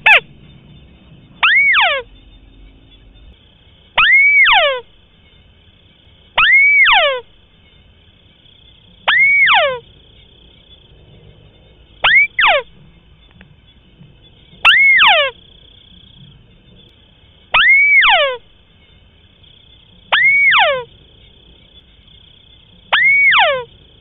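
White-browed crake calling: a short double note that arches up and then drops steeply, repeated nine times at about two-and-a-half-second intervals.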